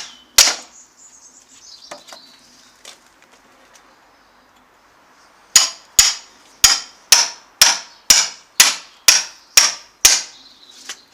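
A big heavy hammer striking a steel chisel driven between pallet slats to cut through the nails. One blow, a pause, then a steady run of about ten sharp blows, two a second.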